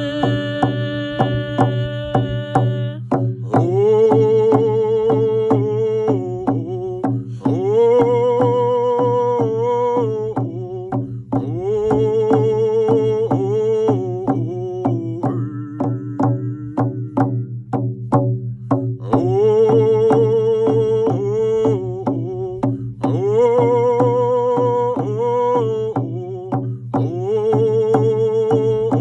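A man singing a song in repeating phrases of long held notes, accompanied by frame drums struck with a beater in a steady beat.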